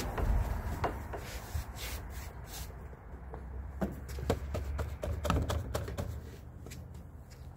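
Handling noise as the stain can and applicator are picked up and moved on the wooden deck: scattered clicks and knocks, more of them about halfway through, over a low rumble.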